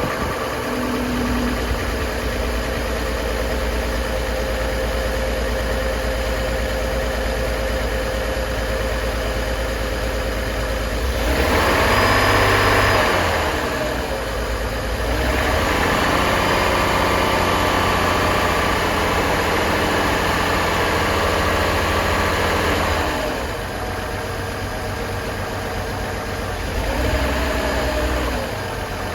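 2004 Chevrolet Trailblazer engine running at idle and revved up three times: briefly about a third of the way in, held for several seconds in the middle, and briefly again near the end. It is still running rough after one coil pack was replaced, with a cylinder misfire that the owner's scan tool later confirms.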